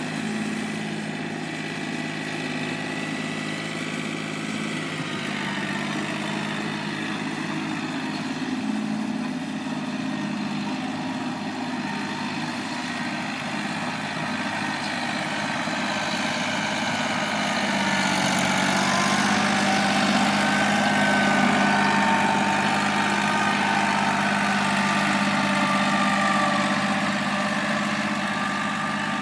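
John Deere 4210 compact tractor's three-cylinder diesel engine running steadily under load as it pulls a 7-foot cultivator through the soil. It gets louder about two thirds of the way in.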